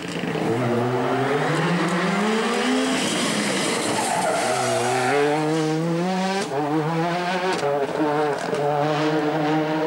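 Rally car's turbocharged engine accelerating hard, the pitch climbing through the gears in quick upshifts, with the revs dropping back about three seconds in and climbing again.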